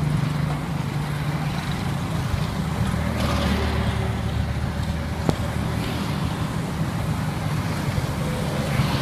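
Road traffic going by: a steady low hum of vehicle engines, swelling as a vehicle passes about three seconds in, with a single sharp click a couple of seconds later.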